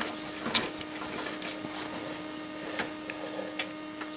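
Light metallic clicks and taps as a long cranked socket bar is turned by hand to tighten a motorcycle engine mounting bolt, the sharpest tap about half a second in, over a steady hum.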